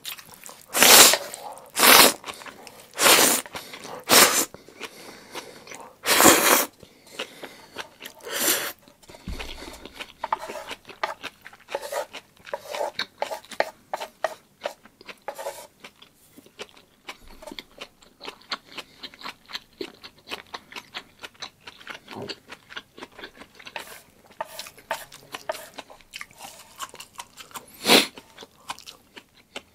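A person eating black bean sauce noodles close to the microphone. There are several loud slurps in the first nine seconds and one more near the end, with wet chewing and small mouth clicks in between.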